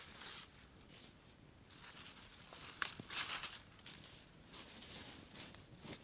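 Dry branches with dead leaves still on them rustling and crackling as they are handled and laid down, with a sharp crack about three seconds in.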